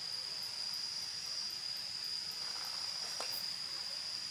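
Crickets chirping: one steady high-pitched trill.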